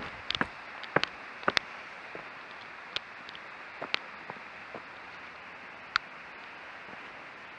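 Footsteps on a gravel and leaf-litter path: a few sharp steps in the first two seconds, then only scattered clicks, over a steady hiss.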